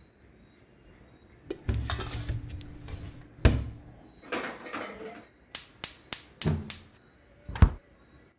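Kitchen cooking sounds: pots, pans and utensils clattering in a series of knocks and clicks, including a quick run of about five sharp clicks, with a heavier thump near the end.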